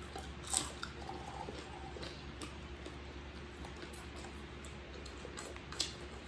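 Quiet mukbang eating sounds: close chewing and small clicks of fingers and food on plates, with a sharper click about half a second in and another near the end, over a steady low hum.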